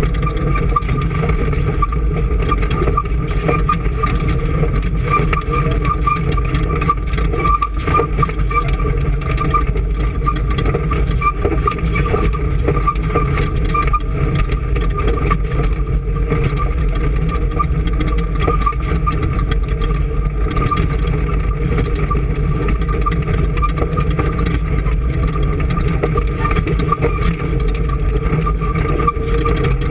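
An engine running steadily at an even speed, with a constant high hum over the low running noise.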